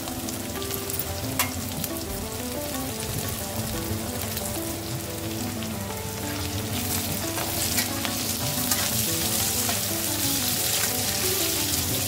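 Chopped onion, garlic and dried red chillies sizzling in hot oil in a kadhai, stirred with a metal spoon that clicks and scrapes against the pan now and then. The sizzle grows louder over the second half. This is a tadka frying over medium heat toward golden brown.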